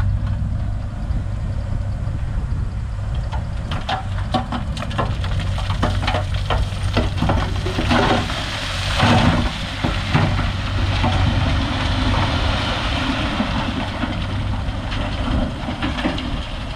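Heavy diesel machinery running steadily, with a string of clanks and knocks from about three to ten seconds in and a louder grinding rush around eight to ten seconds in.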